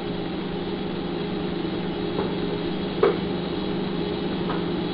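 Steady mechanical hum from a kitchen appliance or fan, with three light knocks of a knife against a cutting board as fat is trimmed off a steak; the middle knock, about three seconds in, is the loudest.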